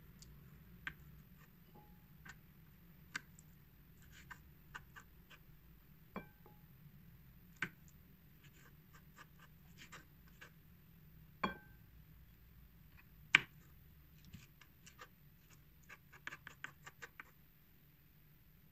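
Kitchen knife clicking, tapping and scraping on a wooden cutting board as sardines are beheaded and gutted: irregular light ticks with two sharper knocks past the middle and a quick run of taps near the end.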